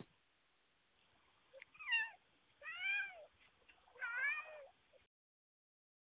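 Young ginger cat meowing three times, each meow short and rising then falling in pitch, picked up by a Ring video doorbell's microphone.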